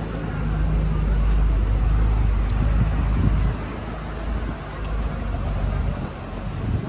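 City street traffic with a motor vehicle's engine running close by, a heavy low rumble that eases off about halfway through.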